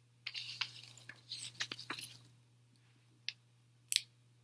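Faint rustling and crinkling with small clicks as a tin eyeshadow palette and its packaging are handled, then a short click and a sharper click near the end.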